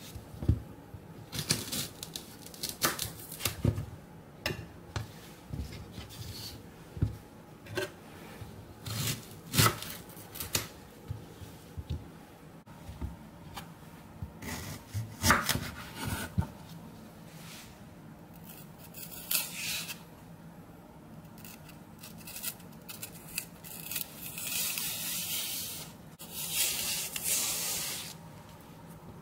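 Rhubarb stalks knocking and rubbing on a wooden cutting board, then a knife peeling the stringy skin off the stalks, heard as longer tearing, scraping strokes near the end.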